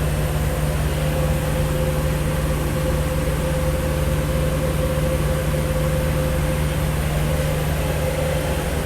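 Steady machinery hum with a constant low drone and a steady mid-pitched tone, no crackle or change throughout.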